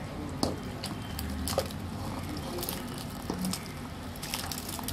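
Meat and gravy poured from a metal pressure cooker into a pot of cooked cracked wheat: wet squelches and plops, with several sharp knocks scattered through, over a steady low hum.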